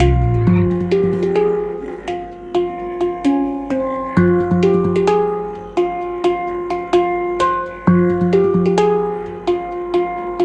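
Hang drum played as a flowing melody: struck steel notes, about two or three a second, each ringing on and overlapping the next, with low notes held underneath.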